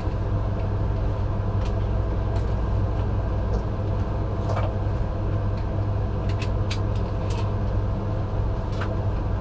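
Steady low rumble of the ambulance's engine heard inside the patient compartment, with scattered light rattles and clicks.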